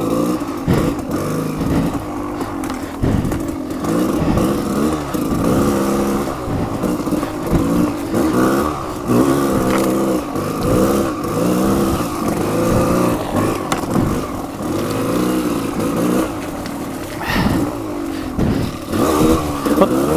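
Off-road motorcycle engine revving up and down again and again as the rider works the throttle over slick, muddy ground.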